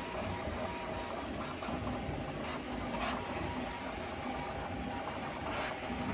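A 3D printer running: a steady mechanical hum with a few faint clicks.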